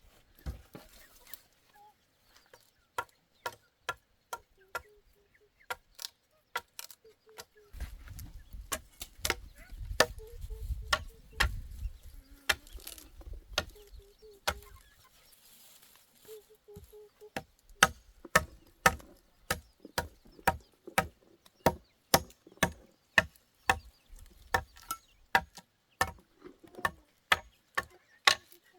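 Repeated sharp blows of a hand tool, scattered at first and then settling into a steady run of about two strikes a second in the second half.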